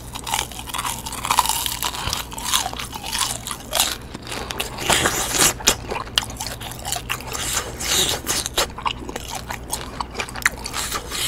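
Close-up chewing of deep-fried gimmari (battered seaweed roll) right at the microphone: an irregular run of crisp crunches and crackles from the batter, with softer chewing of the chewy inside.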